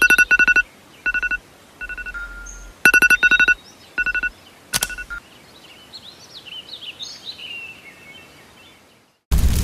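Phone alarm beeping in quick clusters of short electronic beeps, repeating about once a second, then stopping about five seconds in. Faint bird chirping follows, and loud music cuts in just before the end.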